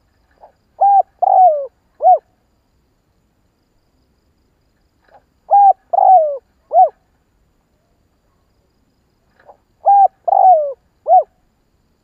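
Spotted dove cooing: three phrases about four seconds apart, each a faint lead-in note followed by three coos, the middle coo drawn out and falling in pitch.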